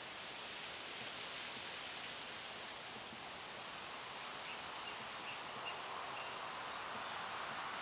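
Steady outdoor ambient hiss of wind and distant water, with a few faint, short high chirps about two-thirds of the way through.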